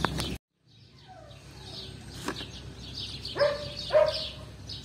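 Outdoor street background with small birds chirping steadily, and two short dog barks close together near the end. The sound cuts out briefly near the start, then fades back in.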